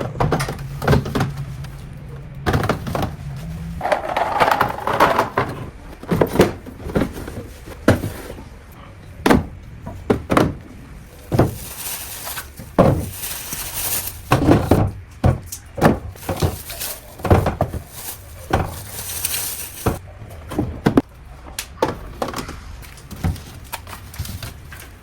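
Irregular knocks, clicks and clatter of objects being handled and set down, dozens of separate hits at uneven spacing.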